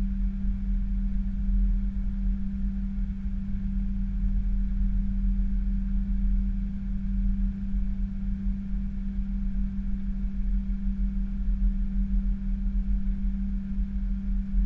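Airliner cockpit noise as the aircraft rolls along the runway: a steady hum over a low rumble.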